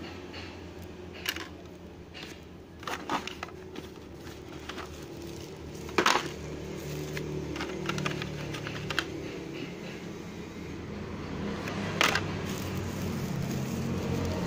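Scattered clicks and knocks as hands handle a USB charging cable and the black plastic tray of a clipper case, the sharpest knocks about six and twelve seconds in, over a steady low hum.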